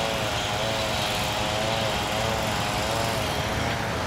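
Small engine of track-work equipment running steadily, its pitch wavering up and down in an even rhythm about twice a second.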